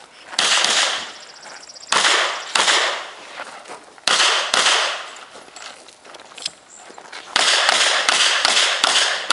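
Shots from a Smith & Wesson Model 610 10mm revolver in a string of fire. First come single shots a second or two apart, then a quick run of several shots about seven seconds in, each shot trailing off briefly afterwards.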